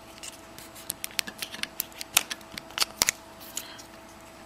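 Plastic clicking and scraping of a Samsung Vibrant smartphone's battery being pried out of its compartment: an irregular run of sharp little clicks, the loudest about two and three seconds in. A faint steady hum lies underneath.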